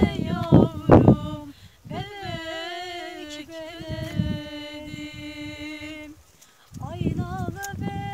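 A voice singing unaccompanied, a folk-style melody with one long held note from about two seconds in until about six seconds, then a short break and the singing picks up again near the end.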